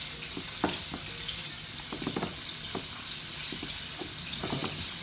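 A silicone spatula stirring a thick mayonnaise sauce in a ceramic bowl: soft wet squelching and light scraping strokes over a steady background hiss.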